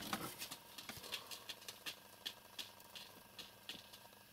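Faint, irregular light clicks and rustles, several a second, over quiet room tone.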